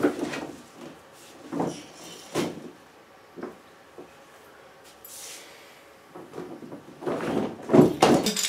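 A Sea to Summit backpack dry bag being handled at its open top: scattered fabric rustles and soft knocks, busier and louder near the end.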